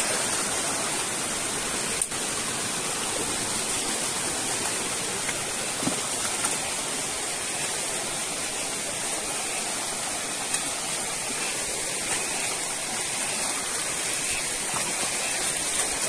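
Shallow rocky forest stream rushing steadily over stones.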